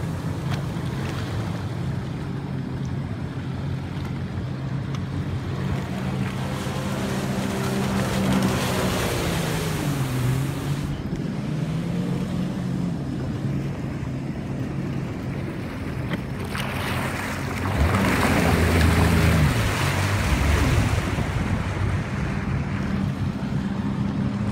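Supercharged 2006 Sea-Doo GTX personal watercraft running at speed, its engine note rising and falling as it passes and turns, loudest about 18 seconds in. Under it, a boat engine runs steadily, with water rushing and wind on the microphone.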